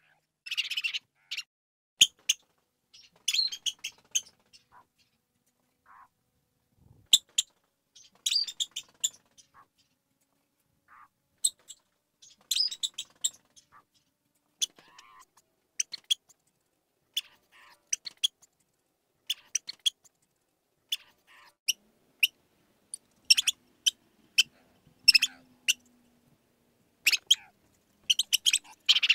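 Mouse squeaking: short high-pitched squeaks in scattered clusters of a few at a time, with silent gaps between them.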